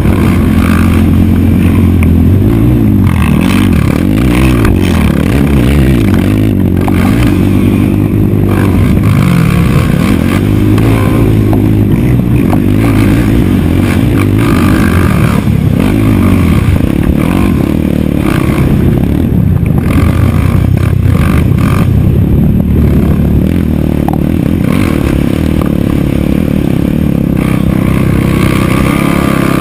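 Racing quad engine at high revs on a dirt track, its pitch rising and falling again and again as it is throttled through the corners and straights.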